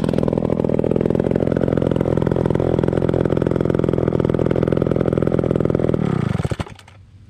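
Vintage McCulloch 890 chainsaw's 103 cc two-stroke engine, with a gear-driven chain, running loud and steady at high speed. It is shut off about six seconds in and quickly winds down to a stop.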